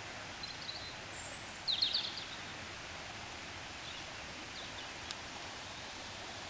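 Small birds chirping a few times, the loudest a quick run of falling high notes about two seconds in, over a steady outdoor background hiss.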